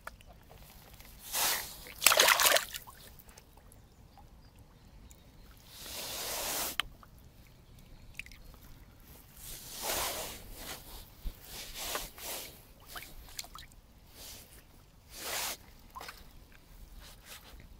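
Bream thrashing in shallow water, with a series of short, irregular splashes and sloshes. The loudest comes about two seconds in, and quieter ones follow around six, ten, twelve and fifteen seconds in.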